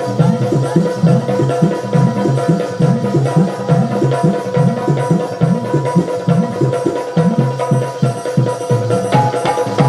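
Live Rai folk-dance music through a PA: hand drums beating a fast, steady rhythm, with a steady held tone sounding above them.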